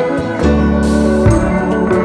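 Background music: melodic instrumental notes held over a deep bass line.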